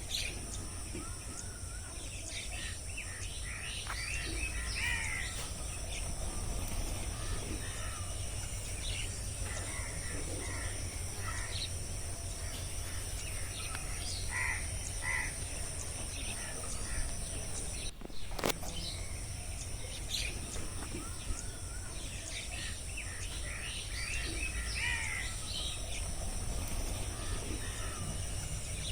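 Rainforest ambience: assorted birds chirping and calling in short scattered phrases over a steady high insect drone and a low wind rumble, with a brief dropout about two-thirds of the way through.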